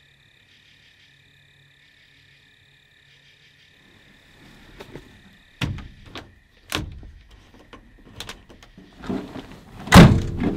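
Truck camper shell's side window being worked by hand: sliding, latching clicks and knocks, with the loudest thunk near the end.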